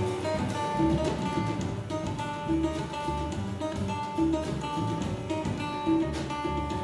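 Live ensemble music led by acoustic guitar, with a transverse flute, double bass, drum kit and tabla playing a steady repeating groove.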